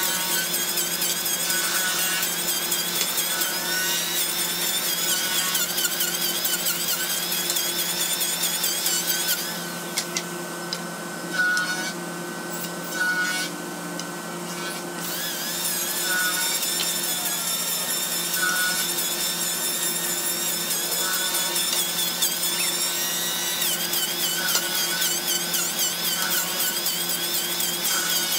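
Electric hand planer running and shaving the edge of a thick wooden slab, its whine wavering as the blades bite. It goes quiet for about five seconds partway through, apart from two short bursts, then starts again. A steady low hum lies underneath throughout.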